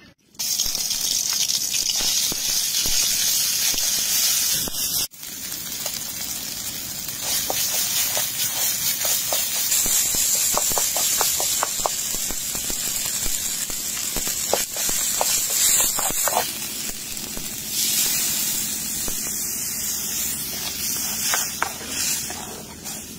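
Curry spice paste sizzling hard in hot oil in a metal pan, with short clicks and scrapes from a metal spoon stirring it. The sizzle drops out for a moment about five seconds in.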